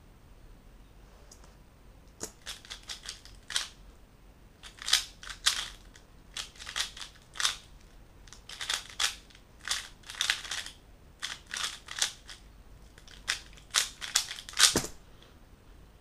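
Plastic 3x3 Rubik's cube being turned fast during a speedsolve: quick runs of sharp clicking layer turns for about twelve and a half seconds. The run ends with one heavier knock.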